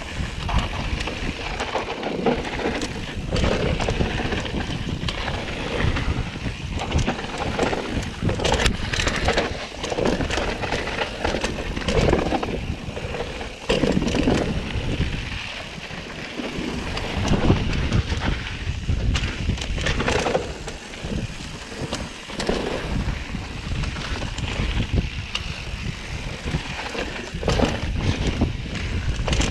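Mountain bike riding fast down a dirt singletrack: tyre noise on dirt with frequent rattles and knocks from the bike over bumps and roots, under wind rushing on the microphone.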